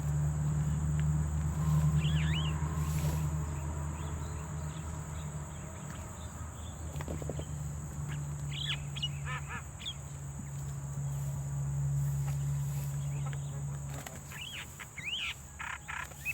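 Javan mynas giving short, harsh calls in a few scattered groups, over a steady low hum.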